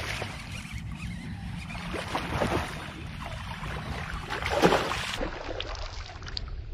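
A hooked bass splashing at the water's surface beside the boat as it is played in, a few splashes with the loudest about four and a half seconds in. A steady low rumble of wind on the microphone runs underneath.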